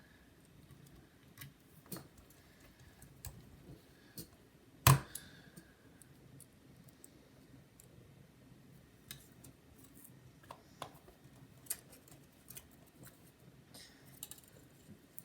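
Small clicks and taps of a precision screwdriver and tiny screws being handled on a laptop's underside, scattered irregularly, with one sharper, louder knock about five seconds in.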